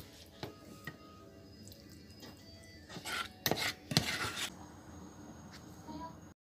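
A spoon knocking and scraping on a ceramic plate as stewed papaya is served onto it, with a few light clicks and then a cluster of louder clinks and scrapes about three to four seconds in.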